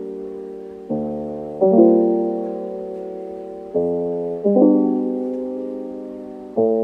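Background piano music: slow chords struck in pairs, each left to ring and fade before the next pair.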